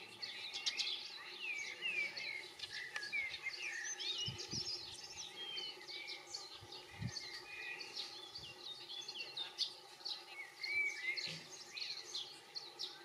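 European goldfinches twittering: a steady stream of quick chirps gliding up and down, with a few soft low thuds around the middle.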